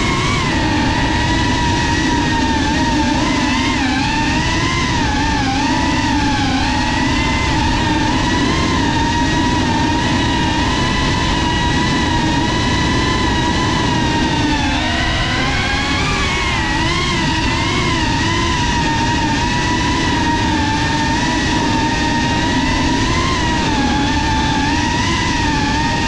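GEPRC Cinelog 35 cinewhoop's brushless motors and ducted propellers whining in flight, with a steady rushing noise underneath. The pitch wavers up and down with the throttle, drops about halfway through and climbs again.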